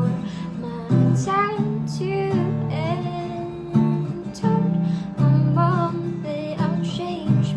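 Acoustic guitar strummed in steady chords, with a woman's voice singing a melody over it.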